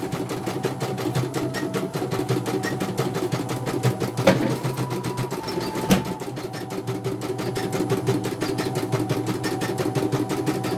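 CNY portable computerized embroidery machine stitching a design: a quick, even rhythm of needle strokes over the steady hum of its motor, with two sharper clicks about four and six seconds in.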